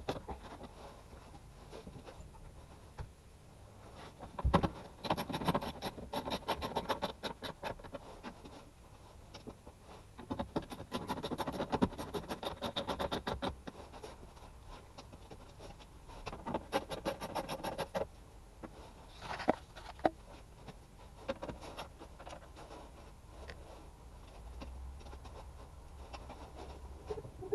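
Hands-on work on car parts: several bursts of rapid clicking or rattling, each lasting one to three seconds, with a sharp knock about four and a half seconds in and scattered scrapes between.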